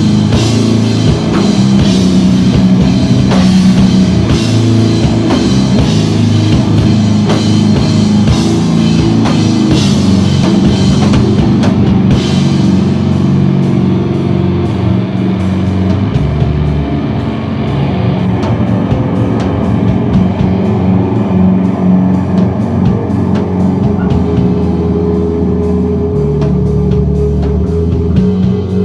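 Live rock band playing: guitar, bass and drum kit. About twelve seconds in the cymbal wash drops away, leaving held guitar and bass notes over a steady light ticking beat.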